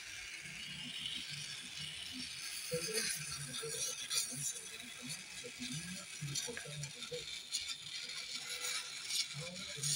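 Gas welding torch flame hissing steadily while aluminium is welded, with scattered light clicks.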